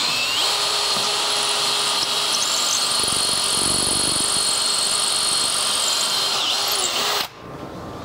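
Makita 18V cordless drill running steadily with a long bit, boring a pilot hole through the door jamb into the wall stud for a 3-inch screw. The whine holds even, then stops about seven seconds in.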